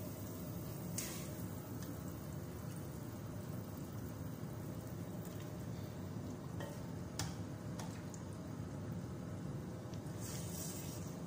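Pot of tomato broth boiling steadily while raw chicken pieces are lowered into it, with a few brief splashes, about a second in, around seven seconds and near the end.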